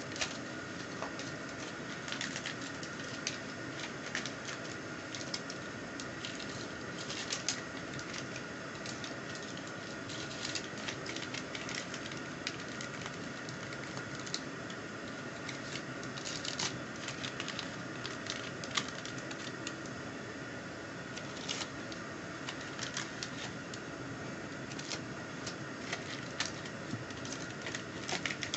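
Irregular light clicks and taps over a steady background hiss with a faint steady tone.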